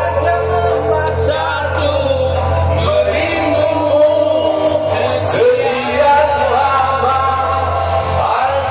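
A man singing karaoke into a handheld microphone over a music backing track.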